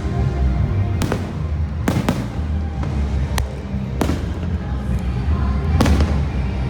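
Fireworks bursting with about six sharp bangs at uneven intervals, over the fireworks show's loud musical soundtrack with a heavy bass.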